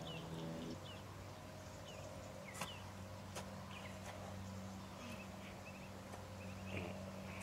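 Faint birds chirping outdoors, short high chirps every second or so, over a low steady hum, with a couple of sharp ticks near the middle.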